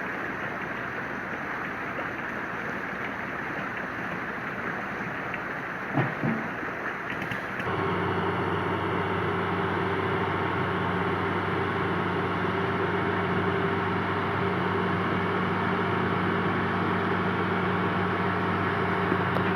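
A steady rushing noise with a brief sharp sound about six seconds in. Then, after an abrupt change, the diesel engine of a Hitachi Zaxis 200 long-arm excavator runs with a steady, even hum.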